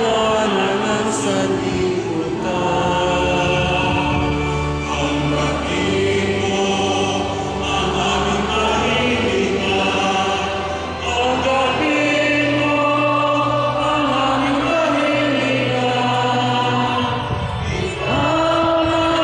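A choir singing a slow hymn, the voices holding long notes.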